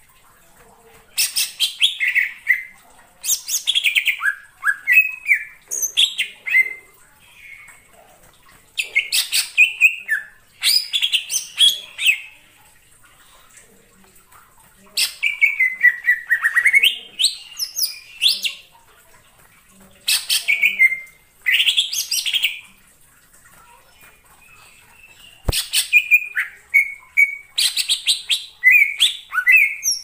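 Cucak ijo (green leafbird) singing in bursts of loud, rapid chattering song full of sweeping whistled notes. Each phrase lasts a second or two and comes again every few seconds. A single sharp click falls a few seconds before the end.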